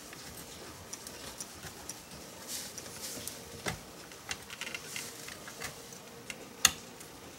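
Small clicks and taps of plastic car console trim and a USB charger socket being handled and test-fitted by hand, with the sharpest click near the end.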